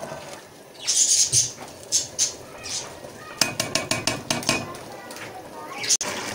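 Pot of rice and chickpeas boiling hard, bubbling and popping with hissy crackles, and a quick run of clicks about three and a half seconds in.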